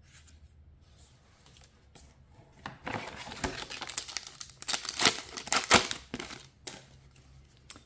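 Foil trading-card booster pack wrapper crinkling as it is handled and torn open, starting a little under three seconds in and loudest about five seconds in.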